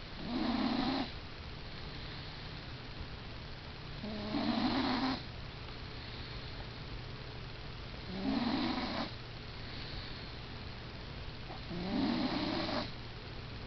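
Snoring from someone asleep: four slow snores about four seconds apart, each lasting about a second.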